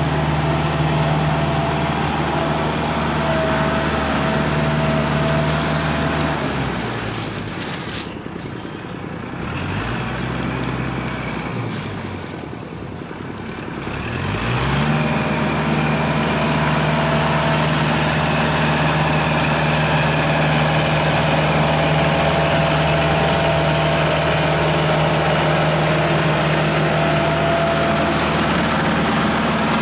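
Kubota tractor's diesel engine running under load as it pulls a rotary tiller through a flooded rice paddy. About 7 s in the engine note drops and it runs slower for several seconds, then climbs back up to working speed and holds steady.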